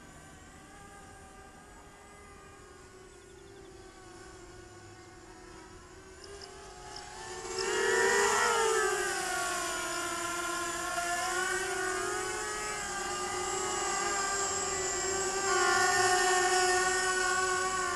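Eachine EB185 racing quadcopter's brushless motors and propellers whining. The sound is fainter while the drone flies far off, then much louder from about eight seconds in, with the drone close by, the pitch swooping up and down with the throttle.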